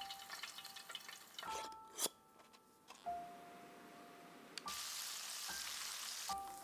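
Food sizzling in hot oil in short stretches that start and stop abruptly, with a sharp click about two seconds in, over soft background music notes.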